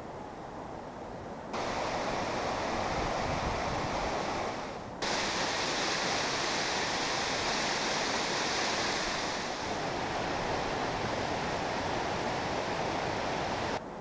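Waterfall: steady noise of falling water that cuts in abruptly about a second and a half in, breaks off briefly and comes back louder about five seconds in, then stops abruptly near the end.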